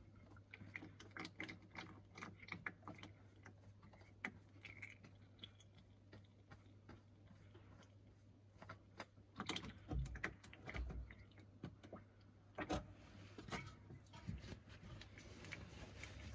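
Faint clicks and taps of a spin-on oil filter canister being turned off its housing by hand on a VW Polo 1.2 engine, with a few louder knocks about ten and thirteen seconds in. A steady low hum runs underneath.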